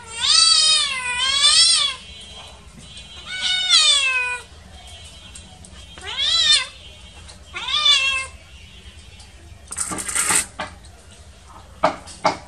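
Young cat meowing insistently, about five loud meows that rise and fall in pitch, the first two back to back. A short rustling burst follows, then a few sharp clatters near the end.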